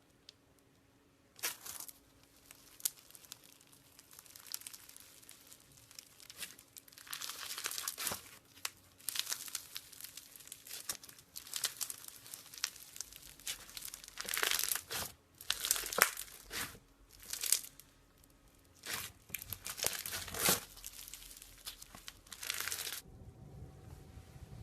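Slime being squeezed, stretched and pressed by hand, giving a dense run of irregular crackles and small pops that thins out near the end.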